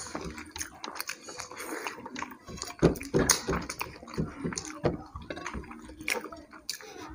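Several people eating rice and fish curry with their hands: wet chewing and lip smacks, with fingers squishing and mixing rice on the plates. Irregular short clicks throughout, loudest about three seconds in.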